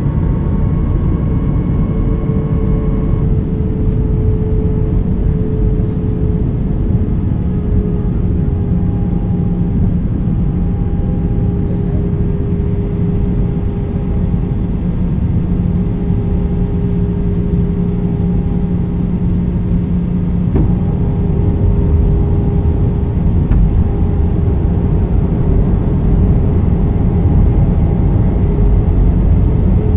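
Airliner cabin noise from a window seat over the wing: the steady rush of the wing-mounted turbofan engines with a few hums that drift slightly in pitch, a higher tone dropping out about three seconds in.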